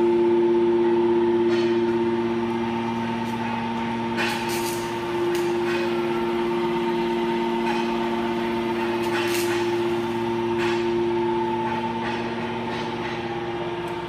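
Hydraulic power unit of a 200-ton metal shaving baler running: an electric motor and pump giving a steady whine of several pitches over a low hum, with a few short noises now and then.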